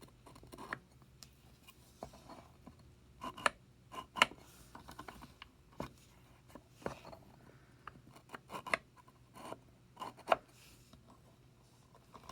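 Wooden puzzle box being handled: scattered light clicks and knocks of wood on wood, with faint scraping as pieces slide, the loudest clicks about three and a half and four seconds in.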